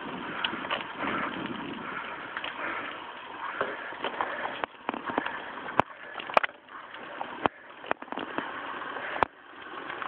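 Bicycle rolling over asphalt, heard as steady tyre and wind noise on a low-quality camera, with several sharp clicks or knocks in the second half.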